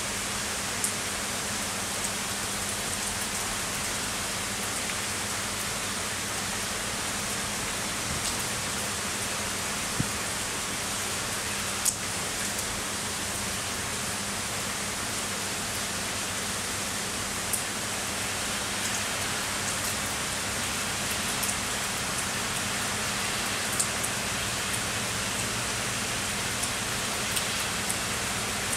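Heavy summer rain falling steadily in a dense, even hiss, with now and then the sharp tap of a single drop landing close by.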